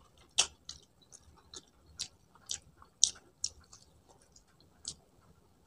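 Close-up mouth sounds of a person chewing a piece of sweet-and-sour chicken: short wet smacks and clicks about twice a second.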